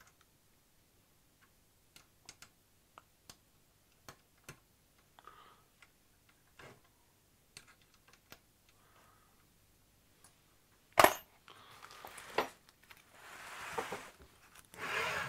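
Light metallic clicks and taps of an Allen key and small metal parts being handled during assembly, scattered and irregular, then a sharp knock about eleven seconds in followed by a rubbing noise.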